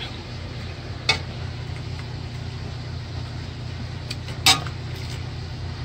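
Two sharp clinks of a metal spoon against the steel pot or serving dish as boiled dumplings are lifted out, one about a second in and one about four and a half seconds in, over a steady low hum.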